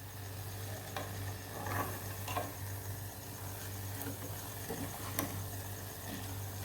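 Stirring a thick jaggery candy mixture of ginger paste and spices in a pan: scattered light scrapes and taps of the utensil against the pan, over a low steady hum.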